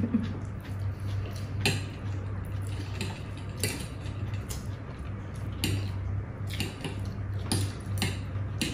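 Forks clicking and scraping against plates as two people eat noodles, a sharp tap every second or so, over a steady low hum.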